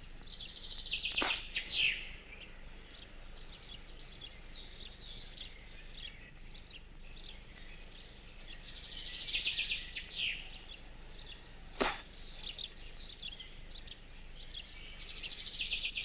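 A songbird singing the same short, fast trilling phrase three times, several seconds apart, over faint outdoor hiss. Two sharp clicks stand out, one about a second in and a louder one about twelve seconds in.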